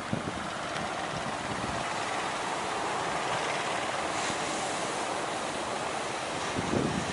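Sea surf washing steadily, with wind blowing across the microphone; a couple of low wind thumps near the end.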